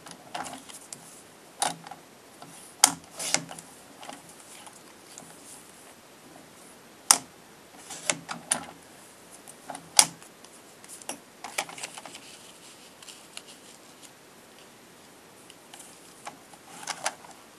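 Sharp clicks and taps from a sliding-blade paper trimmer cutting card stock, with the card being handled and set down on the table. They come singly or in small clusters, with quiet pauses between.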